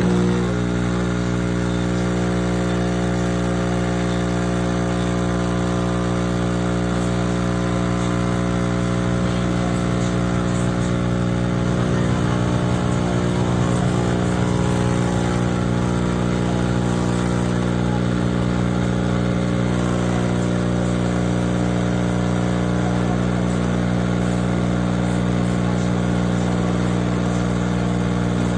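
A steady, loud mechanical drone with a low, even pitch that starts suddenly and holds unchanged.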